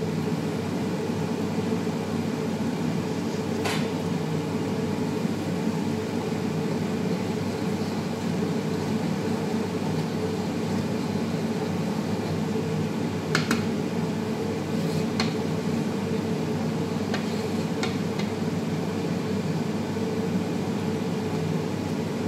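Steady drone of kitchen equipment, with a few sharp knocks of a cooking utensil against a pot, the first about four seconds in and a cluster of three or four past the middle.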